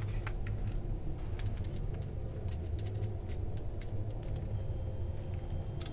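Small scattered clicks and rattles of camera gear being handled: a cable unplugged and a metal tripod with a mounted camera picked up. A steady low hum runs underneath.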